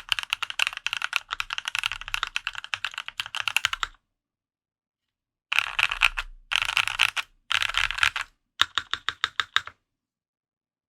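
Typing on a custom mechanical keyboard (Dolphin 2021 with lubed Haimu Raw switches in an aluminium plate, Linworks Retro keycaps): fast continuous typing, which stops about four seconds in. After a pause come three short runs of keystrokes and a final even run of about eight strokes, then it stops.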